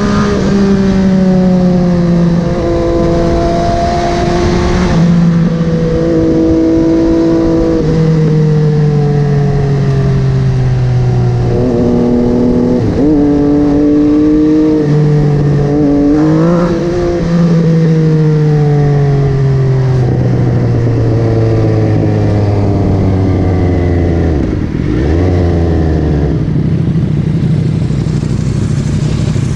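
MV Agusta Dragster 800's three-cylinder engine through a QD Power Gun exhaust, ridden at speed. The note rises and falls as it is revved and shifted through the gears, with a long, slow drop in pitch as it slows past the middle and short throttle blips near the middle and toward the end.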